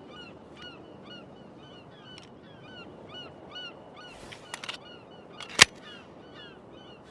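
A single shot from an M1911A1 .45 ACP pistol about five and a half seconds in, the loudest sound, preceded about a second earlier by a few sharp clicks. Throughout, a bird chirps repeatedly with short falling calls, about three a second.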